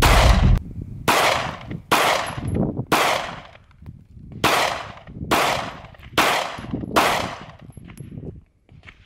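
Smith & Wesson M&P Shield 2.0 9mm pistol firing eight shots at a steady pace, about one a second with a slightly longer pause midway, each shot trailing off in a short echo.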